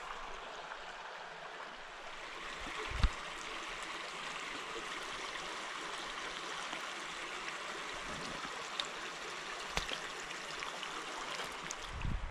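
Small shallow mountain creek running and trickling over rocks, a steady babble, with a single low thump about three seconds in.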